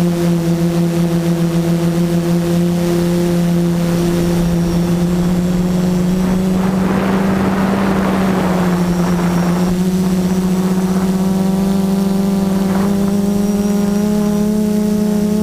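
Brushless motors and propellers of an F330 quadcopter, heard from its onboard camera, giving a steady high hum with overtones. A rush of air noise swells about seven seconds in and fades two or three seconds later.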